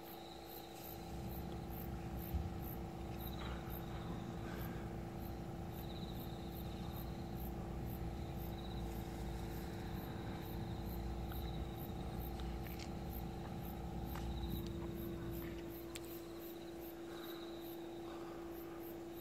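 Quiet outdoor background: a steady hum, with insects chirping in a regular pulse of about two a second and an on-and-off higher trill, over a low rumble.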